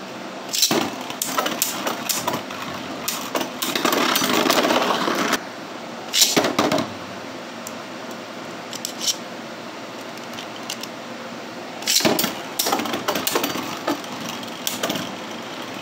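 Beyblade Burst spinning tops whirring on a plastic stadium floor, with bursts of sharp plastic clacks as they strike each other and the stadium wall: clusters about a second in, around four to seven seconds, and again from about twelve to fifteen seconds.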